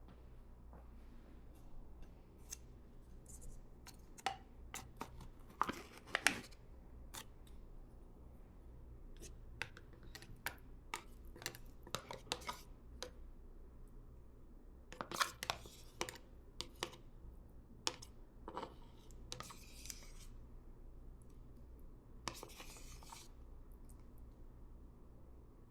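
Small objects being handled: scattered light clicks, taps and scrapes, with a few brief rustling hisses about fifteen, nineteen and twenty-two seconds in.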